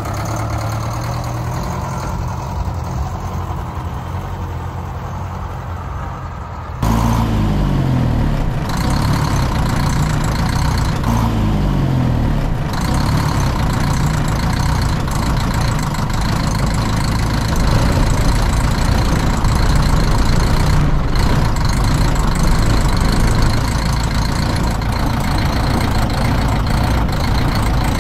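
1957 Csepel D352 fire truck's diesel engine running as the truck drives. It gets louder about seven seconds in, where the engine note rises and falls for several seconds before settling into steady running.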